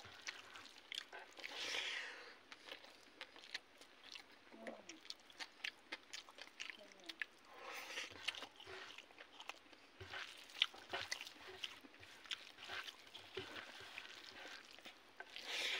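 Close-up mouth sounds of a man eating fried fish and rice by hand: wet chewing with lip smacks and small clicks. There are a few short noisy rushes, about two seconds in, about eight seconds in and near the end.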